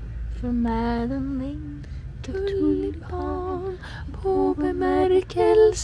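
A woman singing a slow melody close to the microphone, in long held notes with vibrato that start about half a second in, over a steady low background rumble.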